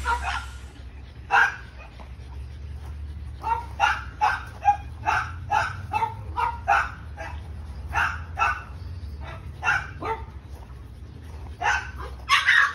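French bulldogs barking and yipping in a kennel, about twenty short sharp barks, some in quick runs of two or three, over a low steady hum. A louder, denser noise starts just before the end.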